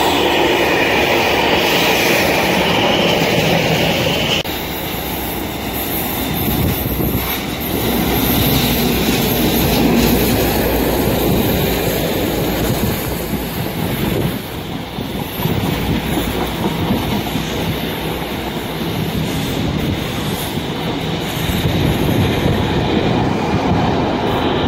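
Container freight train rolling past close by on a curve, its wheels squealing until about four seconds in. After that comes the steady rumble and clatter of rail vehicles passing.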